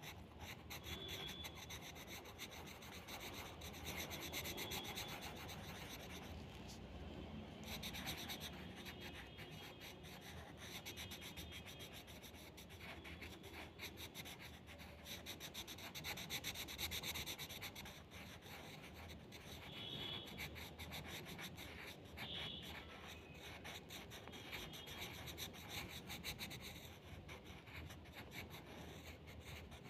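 Light blue colour pencil shading on paper in quick back-and-forth strokes, a faint continuous scratching that pauses briefly a couple of times.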